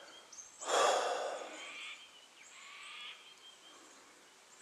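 A person's long exhale, a sigh close to the microphone, starting suddenly about a second in and fading out over about a second. After it comes faint outdoor background with a few thin, high, steady whistles.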